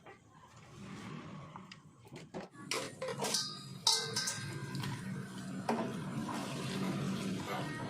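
Kitchen clatter of cookware and utensils: several sharp clinks and knocks, some ringing briefly, about two to four seconds in, over a low steady hum.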